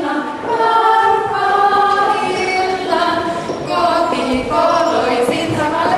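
A small group of female voices singing a song together, unaccompanied.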